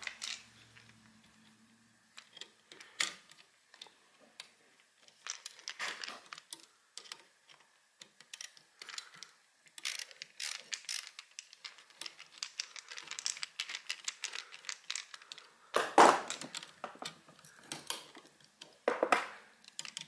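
Screwdriver working the terminal screws of an old two-prong electrical outlet to free its wires: a string of small metal clicks and scrapes, with louder clicks about 16 and 19 seconds in.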